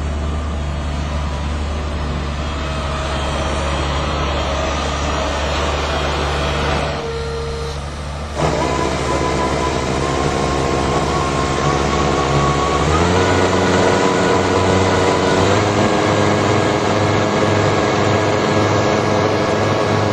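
Skid steer loader engine running steadily while its side discharge bucket dumps sand. The sound dips briefly about seven seconds in, and about thirteen seconds in the engine revs up to a higher steady pitch under hydraulic load.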